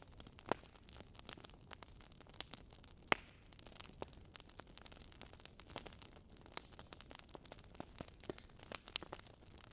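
Fire crackling: irregular pops and snaps of varying loudness over a faint steady background, with one sharper pop about three seconds in.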